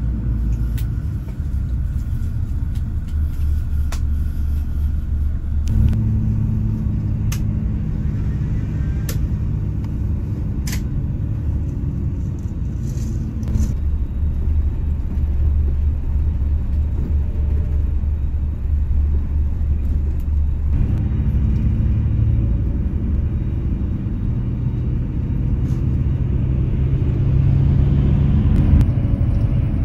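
Coach bus on the move: a steady low engine and road rumble. It changes abruptly a few times, with a few faint light clicks.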